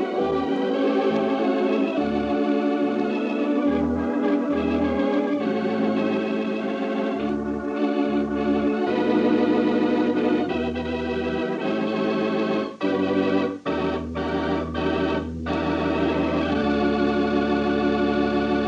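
Organ music from a 1940s radio drama: sustained chords that change every second or two over held bass notes, playing as a musical bridge at the close of the story.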